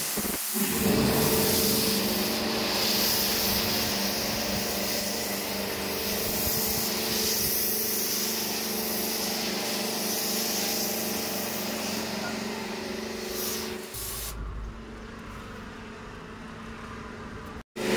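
Car-wash foam sprayer hissing as snow foam is sprayed onto a car, over the steady hum of the running washing machine. About 14 seconds in, the hiss drops away and a lower rumble is left, and the sound cuts out for an instant near the end.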